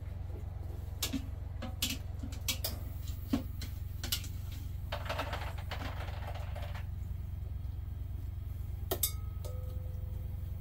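Metal strainer and utensil clinking and knocking against a cooking pot as boiled potatoes are scooped out and drained. A brief rush of draining water comes about five seconds in.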